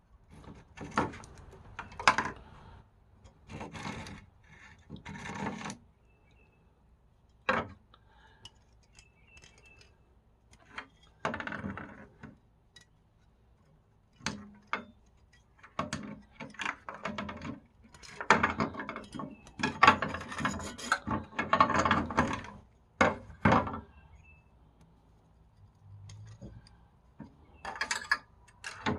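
Hand scraping and scrubbing on the rusted steel of a pair of pliers, in irregular bursts of strokes with short pauses and an occasional sharp click.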